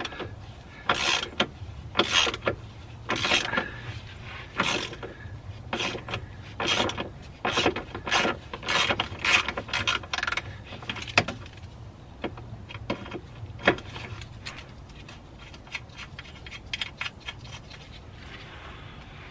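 Ratchet wrench clicking in repeated strokes, about one a second, as it undoes a 13 mm anti-roll bar bush bracket bolt. The strokes thin out after about eleven seconds and fade to a few faint clicks.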